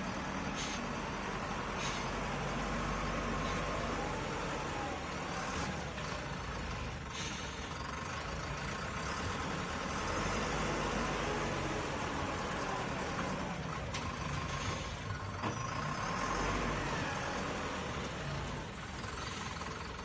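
SZM 932B wheel loader working at low speed, its diesel engine running with a steady low hum, with a few short sharp clanks scattered through.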